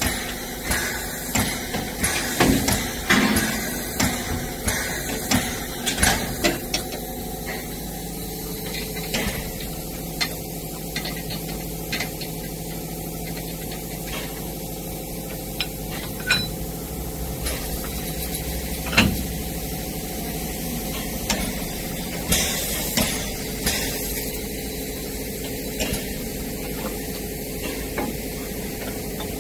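Steam locomotive 99 7241-5 hissing steadily while it is coupled to its coaches, with sharp metal knocks and clanks from the coupling gear and hoses. The knocks come about once a second for the first several seconds, then only now and then.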